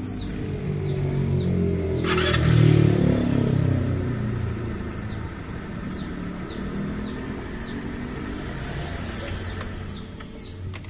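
Motorstar Easyride 150 CL motorcycle engine running with the kill switch bypassed (wired direct) to cure its hard starting. It is blipped once about two seconds in, rising and then falling back to a steady idle. A faint ticking comes about twice a second.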